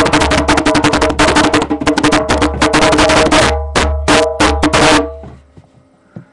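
Bongo drums played by hand in a fast, dense run of strikes. About three and a half seconds in, the run thins to a handful of separate hits, then stops about five seconds in.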